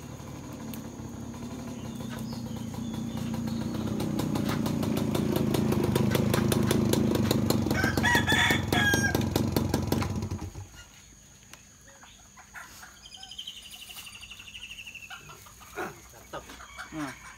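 Small step-through motorcycle engine getting louder as the bike rides up, then switched off abruptly about ten seconds in. Chickens call over it and cluck in the quiet that follows.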